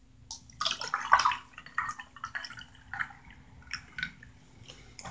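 Juice being poured from a plastic bottle into a cup, gurgling and splashing in uneven bursts, the strongest about a second in.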